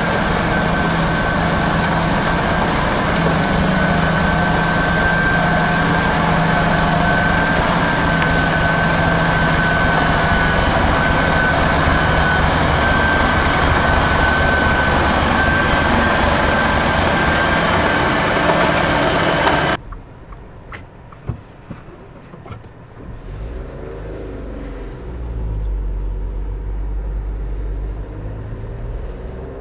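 Tractor-mounted rotary snow blower clearing snow, a loud steady mechanical noise with a steady high whine. About two-thirds in it cuts off suddenly, giving way to a much quieter low engine rumble heard from inside a car.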